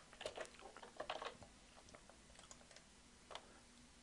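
Faint clicking of a computer keyboard and mouse: a quick run of clicks in the first second or so, then a few scattered single clicks.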